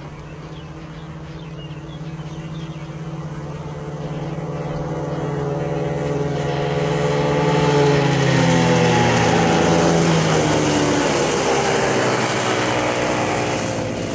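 Two kid karts' small two-stroke engines running at speed. They grow louder as the karts approach, are loudest past the middle, and their pitch drops as they pass by and start to draw away.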